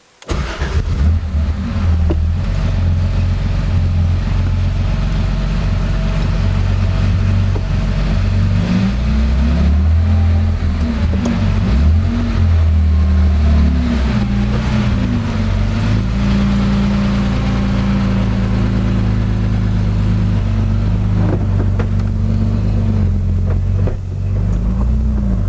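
Air-cooled flat-six of a 1983 Porsche 911SC, heard from inside the cabin as the car is driven at low speed; the engine note rises and falls several times.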